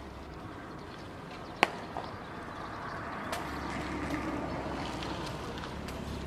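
A thrown baseball smacking once into a leather glove, a sharp pop a little over a second and a half in, with a fainter knock just after. A steady open-air background hiss grows a little louder from about halfway.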